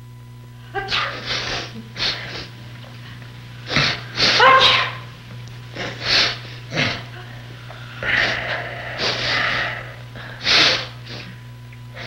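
A man sneezing again and again: a string of about nine sharp, noisy sneezes and catching breaths, the loudest about four seconds in and another strong one near the end.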